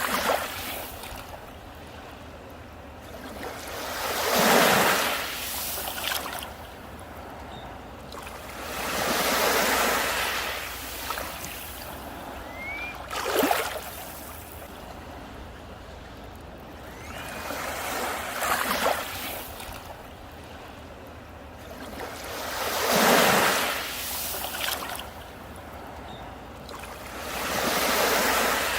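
Sea waves breaking on a beach: six surges of surf, one about every four to five seconds, each swelling and washing back down to a steady hiss between them.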